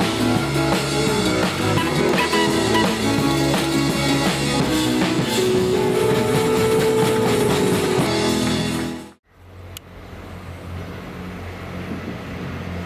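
Music that cuts off suddenly about nine seconds in, followed by a much quieter, steady low background sound.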